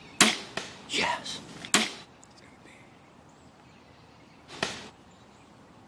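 Bow shot at a whitetail deer: a sharp snap as the arrow is loosed, then several more sharp knocks and rustles over the next two seconds as the arrow strikes the deer, and one more brief noise near the end.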